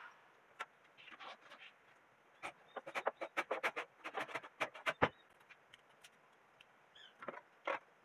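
Faint clicks and knocks from handling the sawn log and tools on a wooden bench, coming thick and fast in the middle, with one heavier knock about five seconds in. Small birds chirp faintly in the background.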